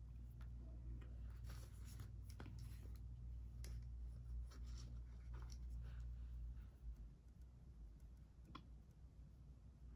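Faint handling noises of makeup being applied: scattered light clicks and scratchy rubbing, mostly in the first half, and one sharper click near the end. Under them runs a low hum that drops away about seven seconds in.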